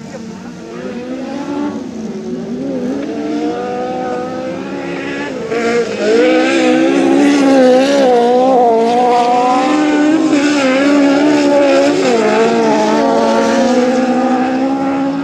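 Lowered VW Beetle autocross cars racing on a dirt track, engines revving up and down as they work through the corners. The engines get louder about six seconds in and hold high revs, the pitch wavering with each shift of throttle.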